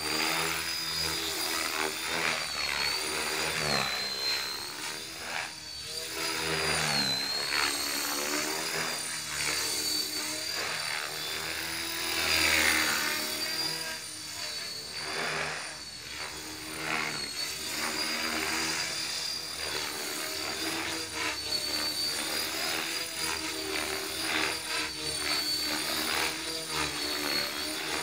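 Align T-Rex 450 electric RC helicopter flying at low rotor speed: a steady high whine from its motor over the whir of the rotor blades, the pitch wavering up and down as it manoeuvres.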